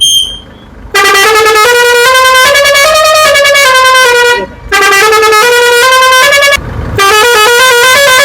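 Six-trumpet musical air horn, fed by a 12 V compressor and tank, playing a stepped tune: three long, loud runs of notes that change pitch several times a second, with short breaks between them.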